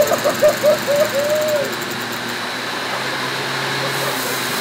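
Homemade jet engine running with flame coming out of its clear combustion chamber: a steady rushing noise with a thin high whine. A run of short hooting tones sounds over it in the first second and a half.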